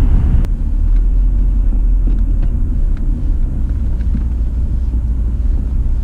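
Car driving slowly, heard from inside the cabin: a steady low rumble of engine and road noise, with one light click about half a second in.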